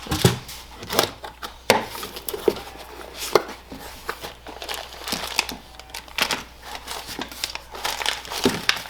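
Shipping packaging being handled and unwrapped by hand: irregular crinkling and crackling of paper or plastic as a fuel pump is taken out of its box.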